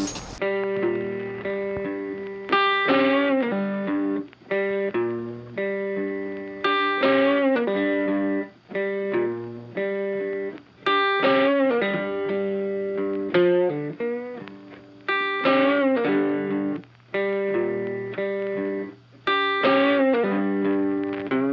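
Background music: a plucked electric guitar playing repeated phrases of notes that ring and fade.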